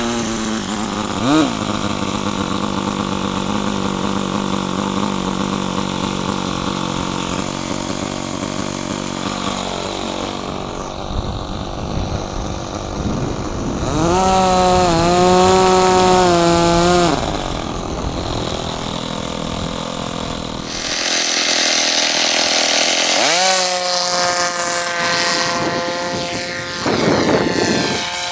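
Radio-control model aircraft engine running with the throttle changing. Its pitch rises just as it starts and again about 23 seconds in, holds steady in between, and is loudest for a few seconds in the middle.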